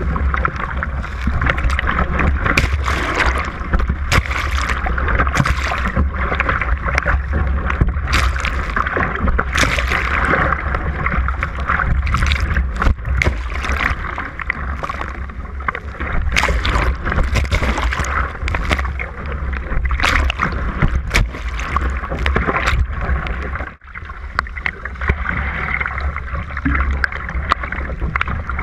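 Water rushing and splashing along a surfski's hull as it is paddled through breaking waves, with many short sharp splashes of spray and paddle strokes. A steady low rumble of wind buffets the bow-mounted microphone underneath.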